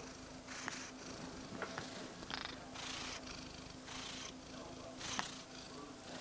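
Domestic cat purring close to the microphone, with a breathy rush of air about once a second.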